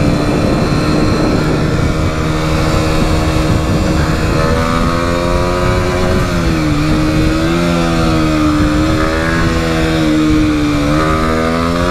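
Motorcycle engine running at road speed, steady at first, then dipping and rising in pitch several times in the second half as the throttle is eased and reopened, with wind noise over the microphone.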